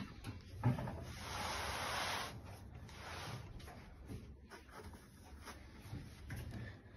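Faint scraping and rubbing of a foam shipping base sliding over carpet as a laser engraver cabinet is turned by hand, loudest about a second in, with a few small knocks of hands on the cabinet.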